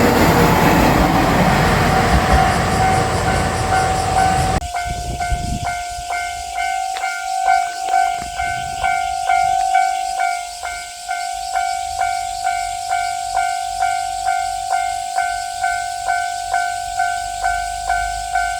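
A Japanese level-crossing bell rings in a steady rhythm of about two strikes a second while a JR Shikoku 1000-series diesel railcar runs over the crossing. The train noise stops about five seconds in, and the crossing bell keeps ringing on its own.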